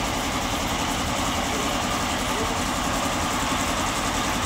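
Engine idling steadily, with an even rapid pulsing.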